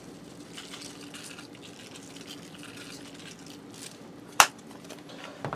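Grated Parmesan being shaken from a plastic shaker onto spinach leaves in a pan: faint light rustling over a faint steady hum, then one sharp click about four seconds in as the shaker is handled.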